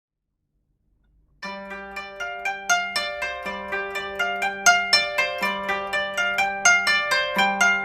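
Background music: after about a second and a half of silence, a melody of plucked, ringing string notes begins, about two to three notes a second over a repeating low note.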